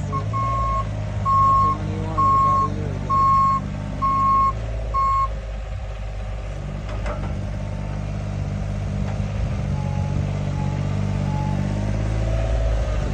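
JCB mini excavator's diesel engine running, with its travel alarm beeping about once a second, a high single tone. The beeping stops about five seconds in while the engine keeps running.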